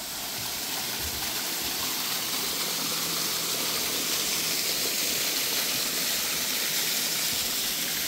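A steady rushing hiss that holds level throughout, with a faint low hum beneath it.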